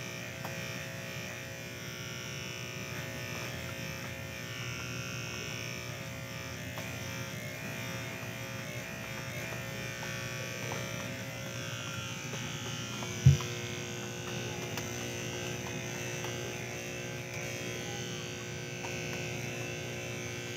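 Electric hair clippers buzzing steadily while cutting hair, with one sharp knock about 13 seconds in.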